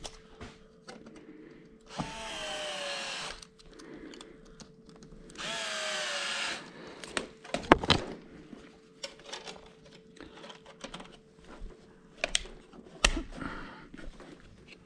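Power drill running in two short spells of about a second each, its whine rising in pitch as it spins up, with sharp clicks and knocks of handling in between.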